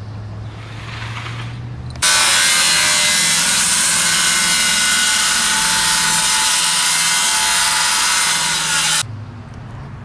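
Handheld circular saw cutting along a wooden board, a steady loud cut of about seven seconds that starts and stops abruptly.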